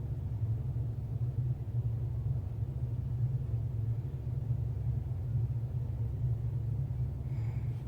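A steady low rumble, with a faint short tone near the end.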